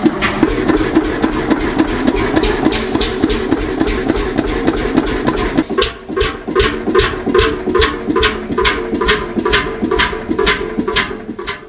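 Bolinder 40 HP single-cylinder two-stroke hot-bulb engine running with a steady, low-speed thump-thump, about three beats a second.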